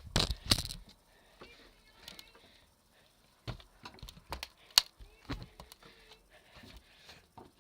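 Two loud bursts of noise at the start, then scattered quiet clicks and knocks, the sharpest about five seconds in.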